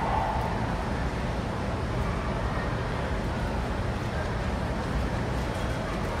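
Steady low rumble of a large exhibition hall's background noise, with a faint murmur of distant voices in it.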